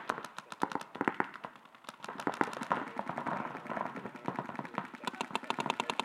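Paintball markers firing in quick irregular volleys of sharp pops, with a short lull just before two seconds in and a dense run of shots again near the end.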